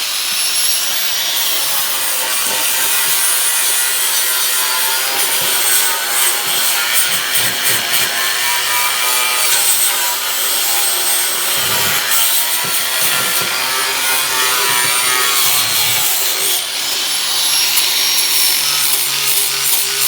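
Electric angle grinder grinding rust off a truck's steel frame, a steady abrasive rasp under a high whine that sags and recovers a few times as the disc is pressed into the metal.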